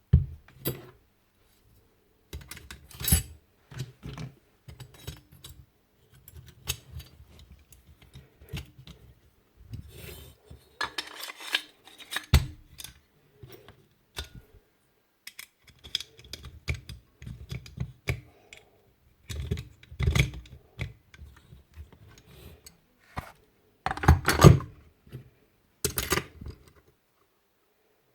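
Metal parts of a Paslode IM350+ nail gun clicking and clattering as they are handled and fitted back together after cleaning and oiling: irregular small clicks and knocks, with a louder clatter about 24 seconds in.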